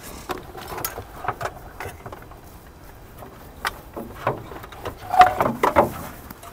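Rubber hoses and wiring being pulled out of a car's engine bay by hand: scattered knocks, rattles and rubbing, busiest and loudest about five seconds in, with a brief squeak.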